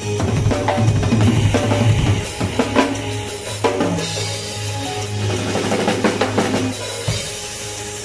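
Acoustic drum kit played hard and busy: kick drum, snare with rimshots, and cymbals. It plays along to a drum-and-bass backing track with a steady deep bass line underneath.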